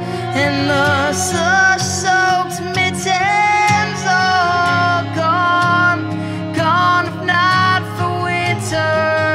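Live folk-band music: acoustic guitar, electric guitar and violin playing together, with a voice carrying a wordless melody line.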